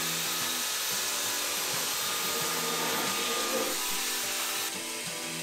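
Electric power sander running steadily against filler putty on a fibreglass boat hull: a continuous hiss with a thin high whine, a little quieter near the end.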